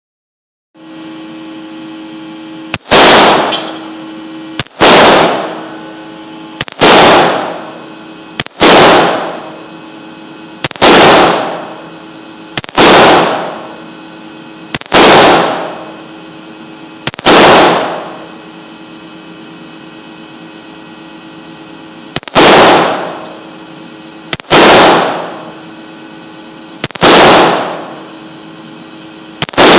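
AR-15 rifle fired semi-automatically, one shot about every two seconds. About a dozen shots, with a pause of about five seconds in the middle. Each shot is loud enough to clip and dies away over about a second.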